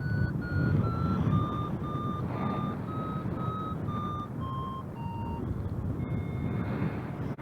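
Paragliding variometer beeping in lift, its pitch stepping down and the beeps stopping about five seconds in as the climb fades; a steady tone sounds near the end. Wind buffets the microphone throughout.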